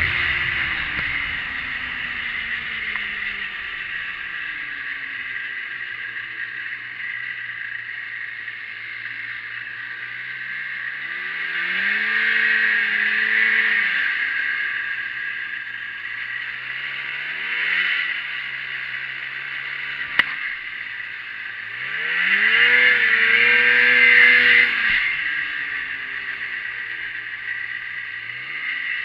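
1987 Arctic Cat Cougar snowmobile's two-stroke engine coming down from high revs to a low idle over the first few seconds, then running slowly with two longer rises in revs, about twelve and twenty-three seconds in, each falling back to idle, and a few short blips. A single sharp click about twenty seconds in.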